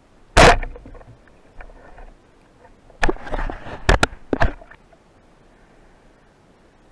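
Underwater shot of an Omer band-powered speargun: one sharp, loud crack as the trigger releases and the shaft is fired. About three seconds later comes a quick flurry of clicks and knocks.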